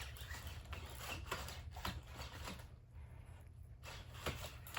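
Robot dog walking: faint, irregular clicks and taps of its feet and leg joints, easing off for about a second near three seconds in, over a steady low hum. Its hip joints have just been repaired, so no grinding is heard.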